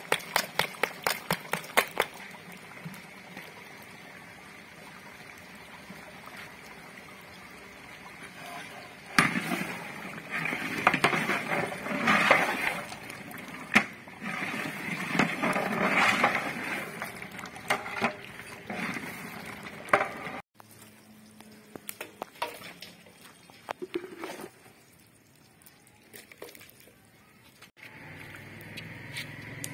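Chicken simmering in a large metal cooking pot over a wood fire, stirred and scraped with a long metal ladle. It opens with a run of quick taps, and the sound changes abruptly twice, ending in scooping into a metal basin.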